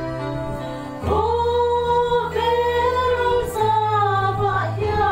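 A trio of women singing together into microphones over an instrumental accompaniment of steady held chords and bass notes. The accompaniment plays alone for about a second, then the voices come in.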